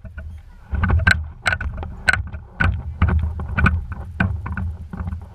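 Water sloshing and slapping around a rig moving along the sea surface, with irregular sharp knocks and clicks, several a second, over a low rumble.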